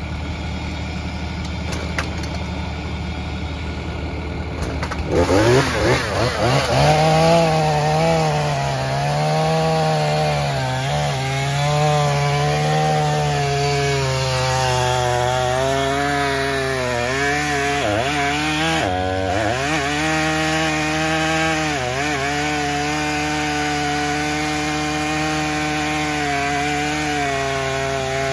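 A two-stroke chainsaw revs up about five seconds in, after a few seconds of steady engine idle, then runs at high revs cutting wood. Its pitch dips each time it bogs down in the cut, sharply several times around the middle.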